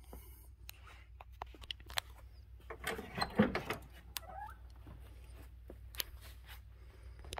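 Rear side door of a 1989 GMC Suburban being opened by its chrome handle, with a latch clunk about three and a half seconds in that is the loudest sound. Small scattered clicks come before and after it over a low steady hum.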